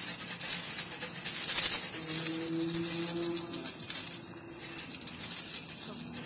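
Tambourine with metal jingles shaken close to the microphone, a bright continuous jingling rattle in quick rhythm, with a brief lull a little past the middle.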